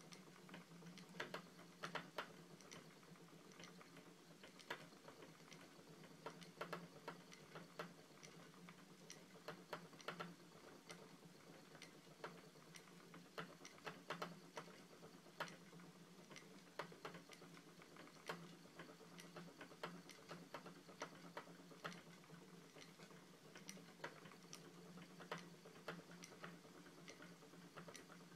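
Spinning wheel being treadled, its moving parts giving faint, uneven clicks about one or two a second over a low steady hum.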